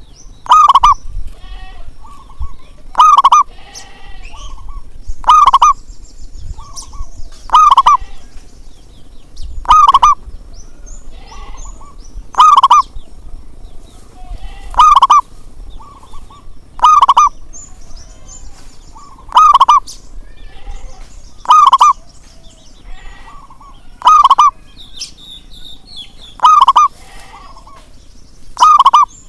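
Zebra dove (perkutut) cooing call, a short, loud phrase repeated evenly about every two and a half seconds, with fainter chirps of other birds in between.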